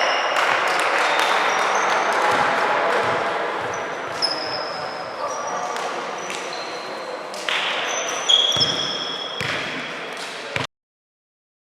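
Basketball game on an indoor court: the ball bouncing, short high squeaks of sneakers on the floor, and voices of players and spectators. The sound cuts off abruptly near the end.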